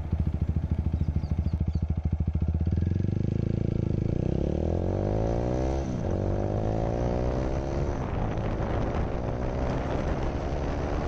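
Single-cylinder engine of a TVS Apache RTR 160 4V motorcycle pulling away from a standstill and accelerating hard. Its pitch climbs, falls sharply at upshifts about six and eight seconds in, and climbs again.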